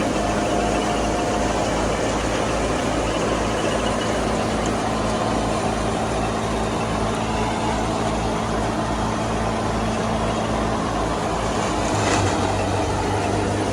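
Massey Ferguson 385 tractor's four-cylinder diesel engine running steadily under load, driving a mustard thresher through its belt. Over the engine comes the thresher's dense, continuous rushing. There is a brief louder surge about twelve seconds in.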